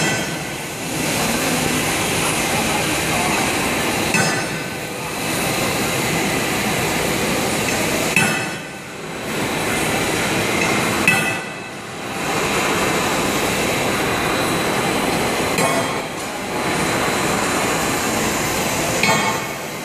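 Double-extruder air bubble film making machine running: a steady loud mechanical noise with a faint high steady whine, dipping briefly every three to four seconds.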